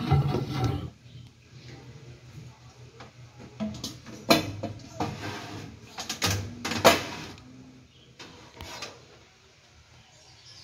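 A clatter, then a string of sharp knocks and clicks a few seconds later, from handling the turbo broiler's glass bowl and lid.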